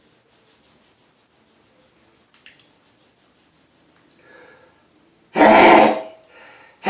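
A man's loud sneeze about five seconds in, after several seconds of faint breathing and a short intake of breath; the next sneeze of the fit begins right at the end.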